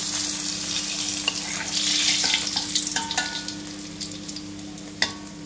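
Hot cooking oil sizzling in a wok as pieces of fried fermented lais fish (pekasam) are lifted out with a metal spatula into a wire-mesh strainer. Light metal clinks of spatula on wok and strainer sound around the middle, with a sharp click near the end, and the sizzle dies down as the fish come out.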